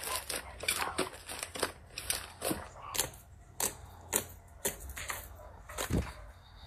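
Slime being squeezed and worked, making irregular crackling, popping clicks with a heavier thump about six seconds in.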